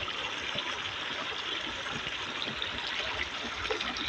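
Shallow river water trickling and running steadily around a wader's legs.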